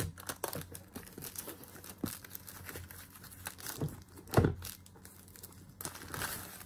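Clear plastic shrink-wrap being torn and peeled off a cardboard box, crinkling and crackling in irregular bursts. One louder knock comes about four and a half seconds in.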